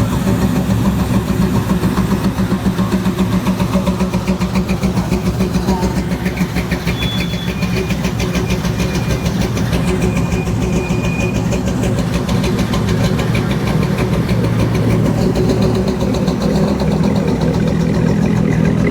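A car engine idling steadily close by, with a rapid, even firing pulse.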